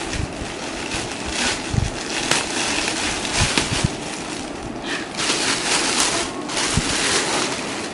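Plastic packaging crinkling and rustling as a gift parcel is torn open and its contents pulled out of a clear plastic bag, with irregular sharp crackles throughout.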